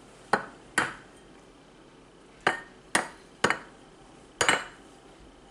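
A tiny chicken egg tapped against the rim of a white ceramic bowl to crack it open: six sharp, unevenly spaced taps.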